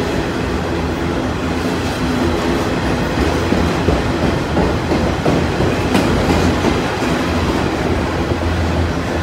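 Freight train of autorack cars rolling steadily past close by: a continuous rumble of steel wheels on the rails with scattered wheel clicks.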